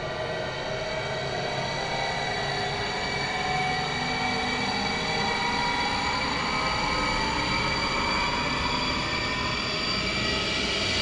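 Designed cinematic sound effect: a dense, rumbling drone of many held tones over a noisy bed. It swells slowly in loudness, with some tones gliding gently upward.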